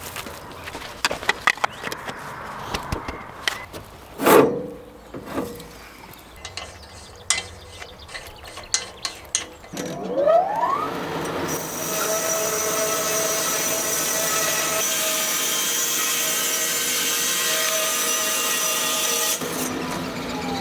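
Knocks and clatter of wood being handled. About ten seconds in, a sawmill's saw spins up with a rising whine, then runs steadily for about seven seconds with a hissing cut through oak before stopping suddenly.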